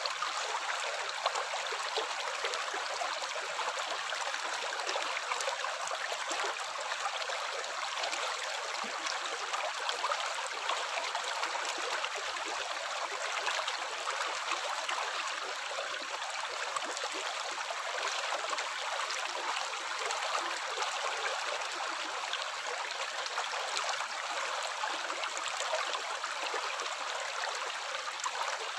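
Running water flowing steadily, a light, continuous trickling and splashing hiss with no breaks.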